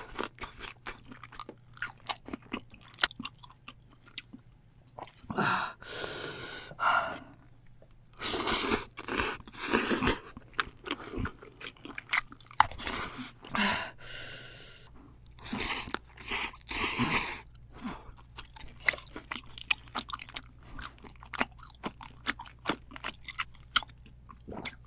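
Close-up chewing and crunching of food in the mouth: many sharp crunches, with several longer noisy stretches of about a second each.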